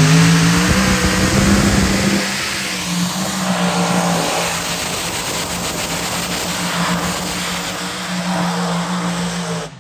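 A modified pulling tractor's engine runs flat out while dragging the weight sled, its pitch held high and steady with a brief dip partway through. The sound cuts off suddenly near the end.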